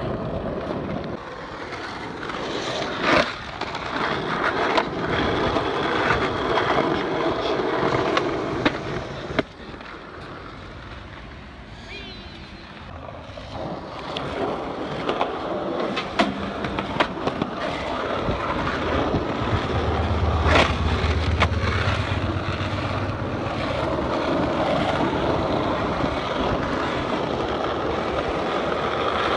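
Skateboard wheels rolling over rough asphalt, with several sharp clacks of the board's tail popping and landing.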